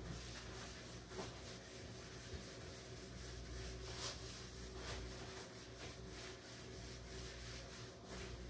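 A cloth wiped back and forth across a table top: faint, irregular rubbing strokes, a few sharper than the rest.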